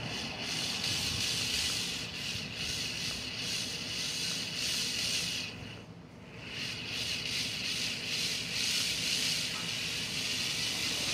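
Cordless drill running with a small twist bit boring into a metal screw head to drill it off a carburetor: a steady high-pitched cutting sound. It stops briefly about six seconds in, then starts again.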